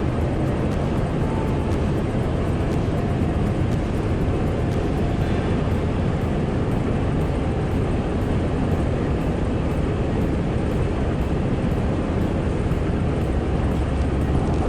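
Steady road and engine noise inside a truck cabin while driving.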